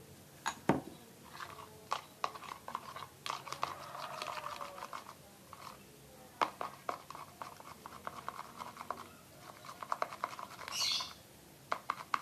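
A spoon stirring thick shampoo in a bowl: irregular clicks and taps of the spoon against the bowl with stretches of soft scraping, in bursts. A brief hiss near the end.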